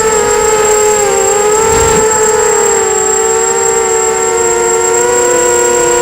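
Brushless motors of a 250-size FPV quadcopter whining steadily, several close pitches wavering slightly together as the throttle shifts, with a thin constant high-pitched tone above them.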